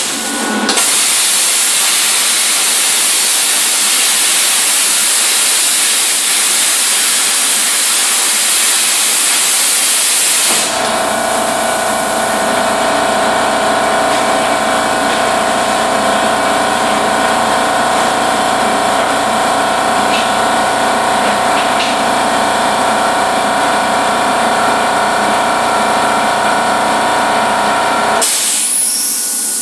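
Plasma cutter (Everlast Power Plasma 50) cutting steel plate, a loud steady hiss of the arc and air jet. About ten seconds in the sound changes abruptly to a hiss carrying several steady whining tones and a low hum, which runs until near the end.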